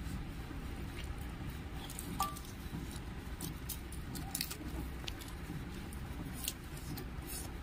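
A person eating with her fingers: wet chewing and mouth smacks with many small sharp clicks scattered throughout, and a short squeak about two seconds in.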